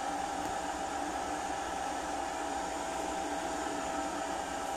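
De'Longhi MultiFry air fryer running, its fan blowing hot air over the fries with a steady whirr and a constant hum.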